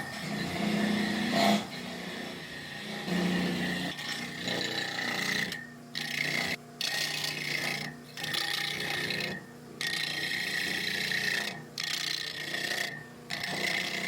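Repeated rasping, scraping strokes, each a second or two long with short breaks between them, over a steady low hum.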